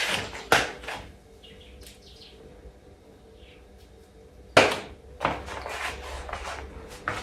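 Several sharp knocks and clicks from objects being handled and set down, the loudest about four and a half seconds in, with faint bird chirps between them.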